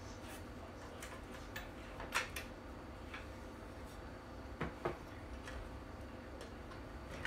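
Scattered light clicks and knocks of parts and a cordless drill being handled on a replica gun, the loudest a pair of knocks about two-thirds of the way in, over a low steady hum.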